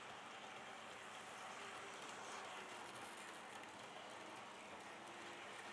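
OO gauge model train, a Class 60 locomotive hauling tank wagons around curved track: a faint, steady rolling rattle of the wheels on the rails.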